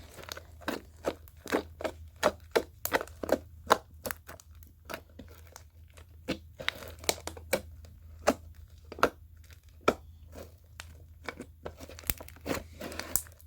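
Store-bought slime being squeezed and folded by hand, giving irregular sharp clicks and pops, several a second in the first half and sparser later on.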